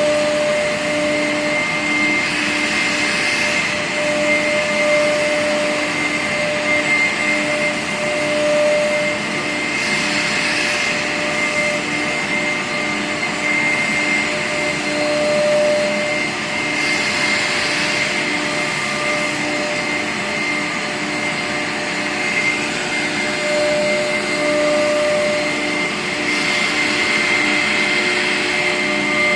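Air-cooled spindles of a four-head CNC router running at high speed while cutting grooves into an MDF cabinet-door panel: a steady high whine with a rushing cutting noise that swells several times.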